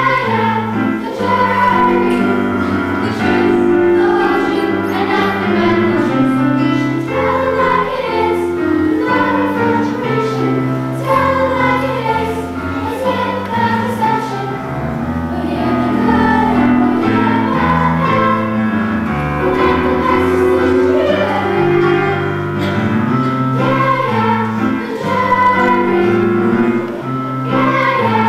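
A choir singing a song in chords with instrumental accompaniment.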